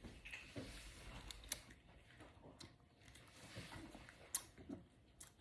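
A quiet stretch with a few faint, sharp clicks and soft handling noises spread through it.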